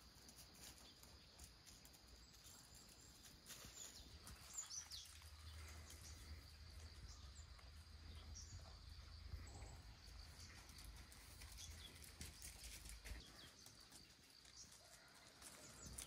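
Faint outdoor morning ambience: a steady high insect drone with a few short bird chirps, and a low rumble through the middle.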